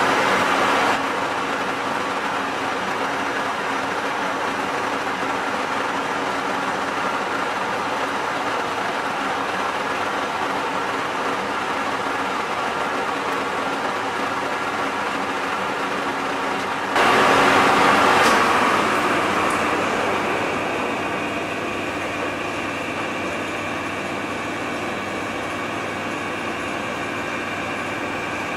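Colchester metal lathe running under power while turning a shaft between centres on a final finishing pass, a steady machine hum with gear whine. The sound jumps louder about 17 seconds in and then eases back down over the next few seconds.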